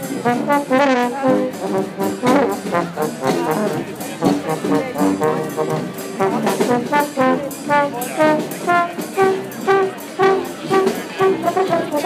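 Street brass band playing live: trumpet and trombones leading a tune in short, punchy notes over a steady beat.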